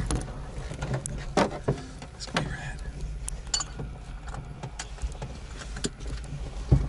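Scattered clicks and knocks of harness buckles and cockpit fittings being handled inside a glider during pre-takeoff checks, over a low steady rumble.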